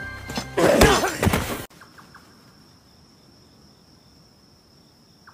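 A loud burst of anime fight sound, a shout over blows from sheathed swords, cuts off abruptly about a second and a half in. It gives way to faint, steady night-insect ambience with a continuous high cricket-like tone.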